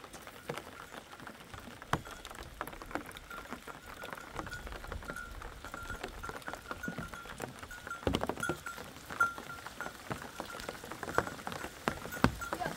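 Light rain pattering, with scattered sharp clicks and taps from a sheep flock's hooves on loose stones, growing busier in the second half as the flock comes closer. A faint steady high-pitched tone sits underneath.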